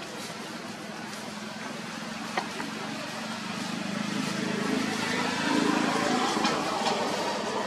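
A motor vehicle engine running steadily, getting louder over the second half, with a single sharp click about two and a half seconds in.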